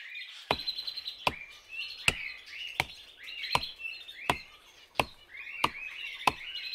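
A curved sickle blade chopping into a standing tree trunk: nine even blows, about one every three-quarters of a second. Birds chirp throughout.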